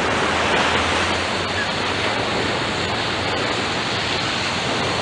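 Ocean surf washing steadily, a continuous even rush of noise, with a low hum underneath in the first second or two.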